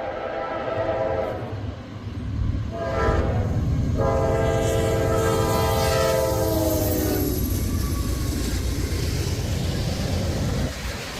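Freight locomotive's multi-chime air horn sounding a long, a short and a long blast, the grade-crossing signal, the last blast sagging in pitch as the engine goes by. Under and after it, the steady low rumble and wheel clatter of the passing freight train.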